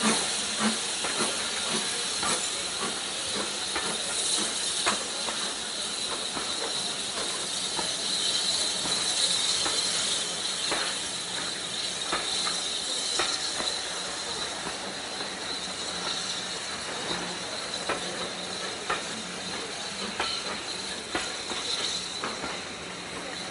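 Passenger coaches of a steam-hauled train rolling past, wheels clicking irregularly over the rail joints under a steady hiss of steam.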